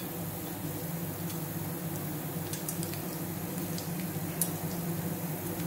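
Whole spices and cumin seeds sizzling lightly in hot oil in a stainless steel pan, with a few faint ticks as they drop in, over a steady low hum.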